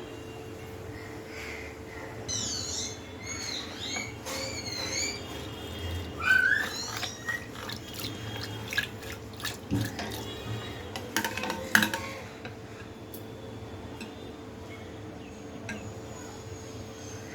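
Birds chirping in short repeated calls, with a few sharp knocks and clinks and a steady hum underneath.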